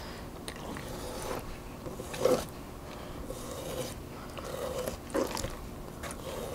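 Kitchen knife slicing and scraping along a raw octopus tentacle on a plastic cutting board as the skin is worked off: soft, scattered scrapes and cuts, the most noticeable one about two seconds in.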